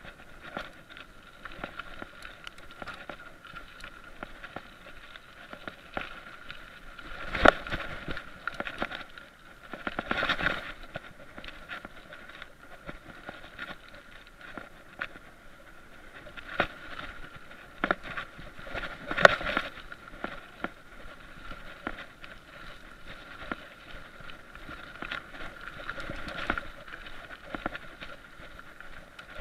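Mountain bike riding over a dirt singletrack, heard from a chest-mounted action camera: steady tyre and trail noise with small rattles and clicks from the bike over bumps. Two sharp knocks stand out, one about seven seconds in and another near nineteen seconds.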